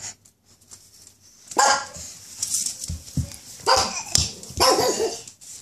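A dog barking three times: two short barks about one and a half and four seconds in, then a longer, wavering one near the end.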